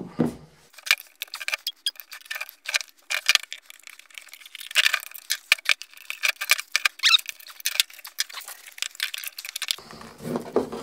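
A screwdriver pries apart the halves of a 3D-printed plastic two-piece mold, making a rapid, irregular run of sharp clicks, ticks and scrapes of metal on hard plastic. The halves come apart near the end.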